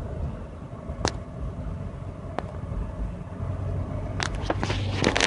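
Ford Sport Trac pickup running with a low rumble. Two sharp clicks come about one and two and a half seconds in, then a burst of rapid clicking and rattling near the end.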